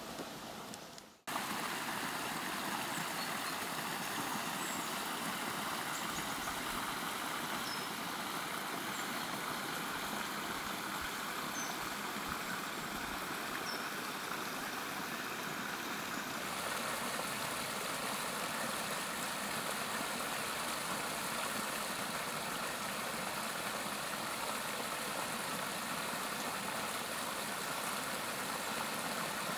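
Water of a small brook rushing and splashing over a low stony cascade, a steady rushing that starts abruptly about a second in.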